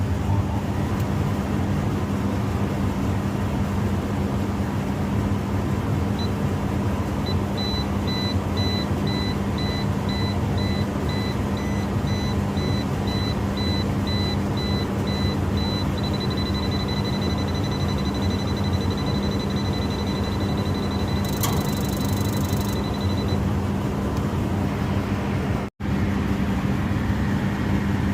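Steady low machinery hum throughout. About six seconds in, a high electronic beeping joins it, pulsing at first and then held as one continuous tone for several seconds. Near the end of the beeping there is a brief hiss.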